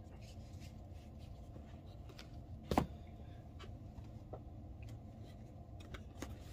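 Low steady room hum with a few faint handling ticks, and one sharp knock a little under three seconds in as a small item is set down on the bench tray.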